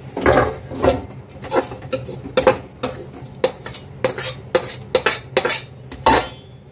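A metal spoon scraping and clinking against a kadhai and a steel bowl as roasted gram-flour mixture is scraped out of the pan: about a dozen irregular clinks and scrapes, the last about six seconds in.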